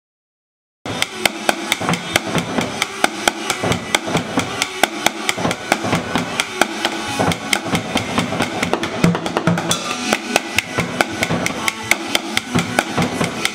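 Drumsticks playing a fast, steady beat on a makeshift drum kit of an upturned plastic bucket and a plastic cooler, starting about a second in after silence.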